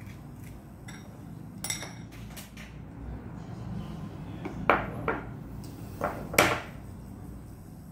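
Porcelain bowls clinking and knocking a few times as an egg is tipped from one bowl into another. The loudest knock comes near the end, as an egg is tapped on a bowl's rim to crack it.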